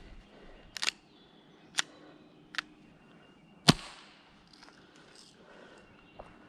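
Airsoft guns firing single shots: four sharp cracks about a second apart, the fourth the loudest.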